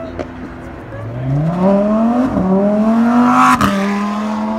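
Lamborghini Huracán's V10 engine accelerating hard past, its pitch climbing, with a sharp crack at an upshift about three and a half seconds in, after which it holds a steady note.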